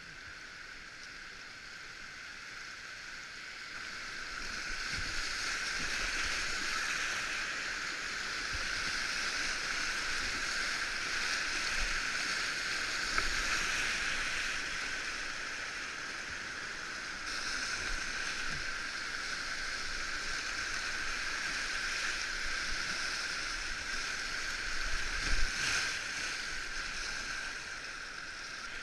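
Whitewater rapids rushing around a kayak as it runs the rapid, swelling about four seconds in as the boat reaches the white water, with a few sharp splashes or knocks from paddle strokes.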